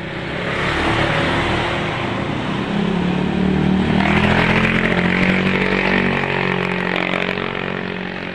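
Motor scooter passing close by: its engine grows louder, is loudest about four to five seconds in, then fades as it moves off.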